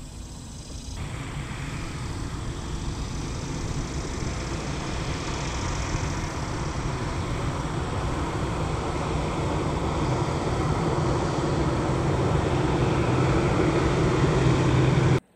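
A steady engine rumble with a low hum, growing gradually louder, then cut off abruptly near the end.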